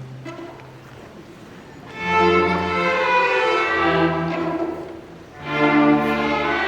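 Middle school orchestra's string section playing sustained chords. It is soft for the first two seconds, swells up loud about two seconds in, dips briefly and swells loud again near the end.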